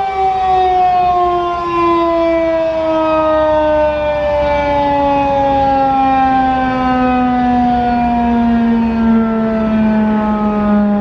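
Federal Signal 2001-DC outdoor warning siren winding down at the end of its steady three-minute alert signal, its pitch falling slowly and steadily as the rotor spins down.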